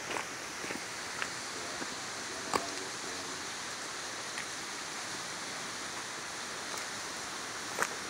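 Steady rushing outdoor background hiss with a few faint clicks of footsteps on gravel and leaf litter, and a sharper clack near the end as a handgun is picked up from the gear bag.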